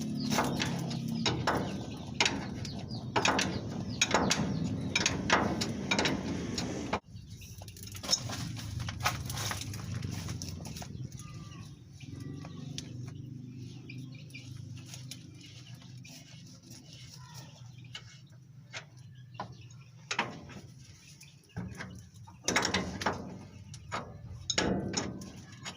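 Irregular clicks and knocks of hand work on a spring and its metal parts, busy for the first several seconds, sparse in the middle, and busy again near the end, over a steady low hum. A few bird chirps sound in the quieter middle stretch.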